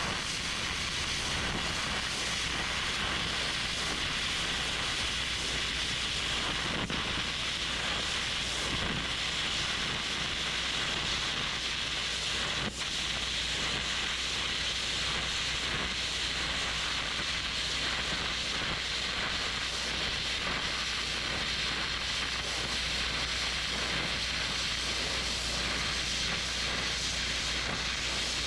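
Air carbon arc gouging on a steel axle housing: the arc crackles and the compressed-air jet hisses steadily as it blows molten metal out of the welds holding a spring perch.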